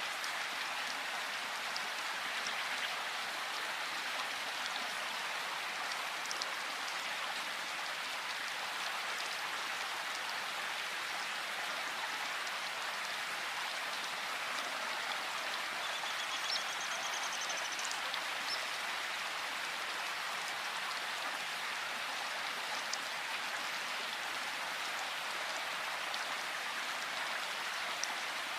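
Steady rain falling, with scattered ticks of single drops. About halfway through, a bird gives a short, high, rapid trill.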